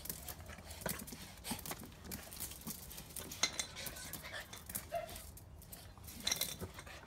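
Two small fox terriers jumping and scrabbling about on brick pavers: irregular clicks and scuffs of claws and feet, with now and then the clink of a stainless steel food bowl.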